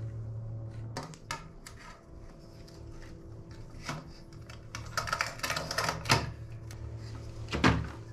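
Irregular clicks and light metallic clattering from a stainless-steel underwater hot tub light fixture being handled and its cord worked into the wall niche, over a steady low hum.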